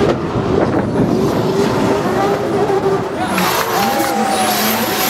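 Two drift cars sliding in tandem at high revs, engines held at a steady wavering pitch over the hiss and squeal of spinning, smoking tyres. In the second half the engine note shifts and a high-pitched whine rises twice.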